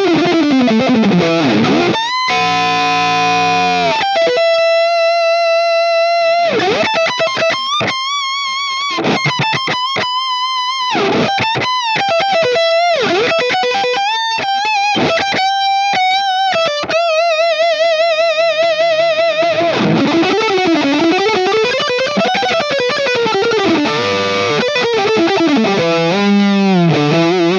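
Electric guitar played through a Griffin Analog Super Drive overdrive pedal: a chord about two seconds in, then sustained single-note lead lines with string bends and vibrato, and sliding notes near the end.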